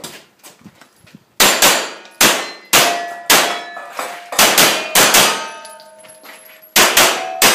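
Rapid pistol shots, about a dozen in quick pairs and short strings, starting about a second and a half in. Several shots are followed by the ringing of steel targets being hit.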